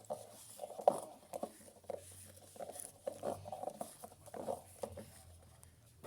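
LG washing machine running its heavy-load cycle: a steady low hum with irregular soft knocks and swishes as the drum turns the load.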